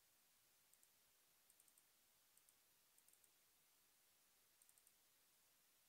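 Faint computer mouse clicks, short and sharp, coming in quick double-clicks and runs of three or four over a low hiss.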